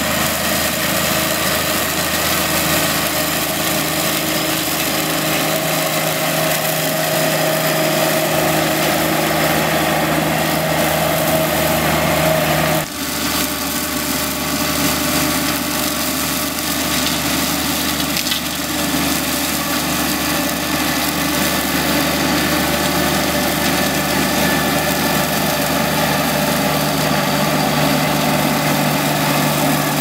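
Toro Dingo mini skid steer running steadily under load, driving a flail mower through tall grass. There is a sudden brief dip about 13 seconds in, after which the running sound continues slightly changed.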